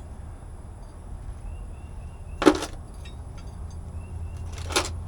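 Two sharp knocks, the first about halfway through and loudest, the second weaker near the end, over a steady low hum and faint repeated high chirps.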